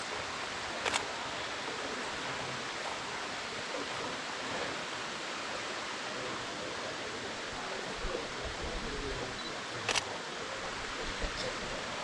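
Steady rush of flowing stream water, an even hiss. Two short clicks sound about a second in and again near the end.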